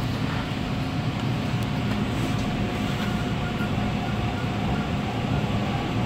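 A Toronto subway train running along the track, heard from inside the car: a steady rumble of wheels on rail with a faint steady hum.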